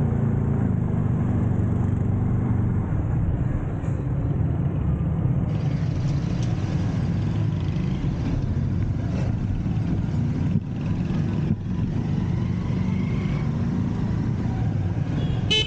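Steady engine hum and road noise of a moving vehicle, with a few brief knocks partway through.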